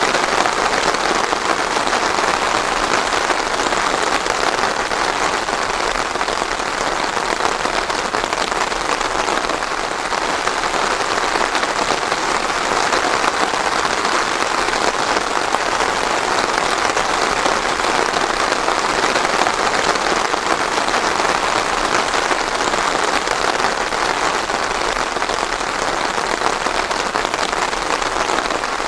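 Steady, even rain falling on a surface, without thunder.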